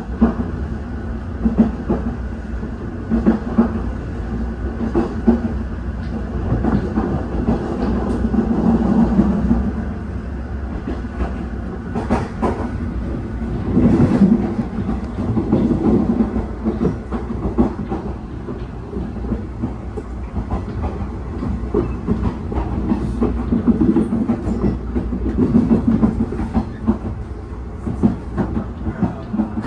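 Inside a JR 381 series limited-express electric train under way: wheels clacking over the rail joints over a steady low rumble.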